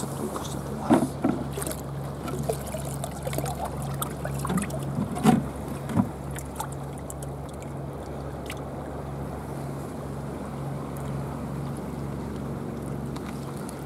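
Seawater sloshing and splashing as a plastic tub is tipped out into a rocky tide pool to release a bigfin reef squid, with a few sharp knocks and splashes in the first six seconds. Underneath runs a steady low hum with an even pulse.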